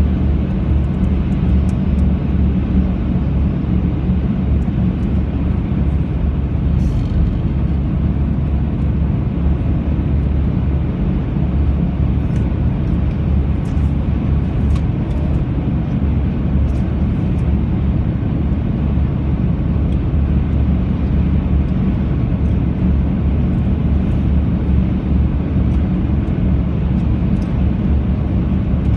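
Steady low rumble of road and tyre noise inside a moving car's cabin, with a few faint clicks.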